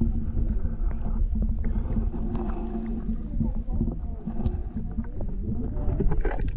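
Muffled low rumble of water heard through a camera held underwater in a shallow river pool, with scattered clicks and knocks of water moving against the housing. About six seconds in there is a short run of sharper splashing as the camera comes up to the surface.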